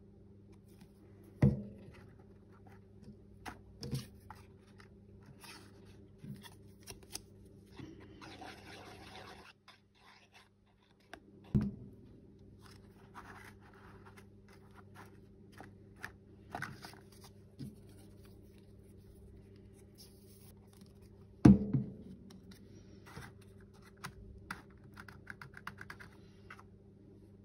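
Hands handling paper and craft materials: quiet scattered rustling and scratching, a longer rustle about a third of the way in, and three sharp knocks, the last and loudest about three-quarters of the way through.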